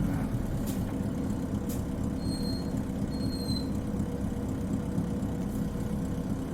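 Isuzu Cubic city bus's diesel engine idling steadily, heard from inside the bus. Two faint clicks come in the first two seconds, then two short high beeps about two and three seconds in.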